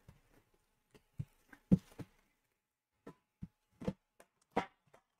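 Hands handling trading cards and their plastic pack wrapper: about ten light, irregular knocks and clicks. The loudest comes a little under two seconds in, with another near the end.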